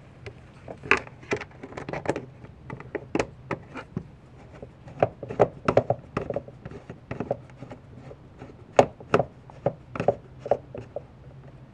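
Irregular clicks and knocks of a screwdriver and hands on the plastic air-intake housing as its screws are driven back in.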